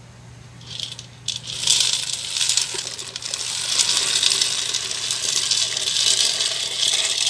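Dry penne pasta clattering as it is poured from a plastic bowl into a pot of boiling water: a few clicks about a second in, then a steady dense rattle.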